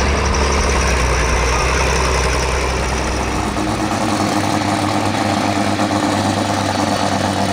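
Super stock pulling tractor's diesel engine idling steadily, with no revving. Its deepest rumble drops away about four seconds in while a higher, even engine hum carries on.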